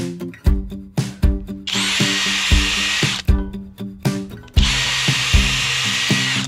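Power drill driving structural wood screws into a wooden post, run twice: about a second and a half, then again for nearly two seconds near the end.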